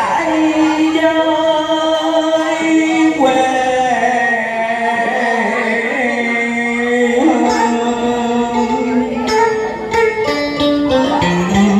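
Music from a slow song, a melody of long held notes over an accompaniment.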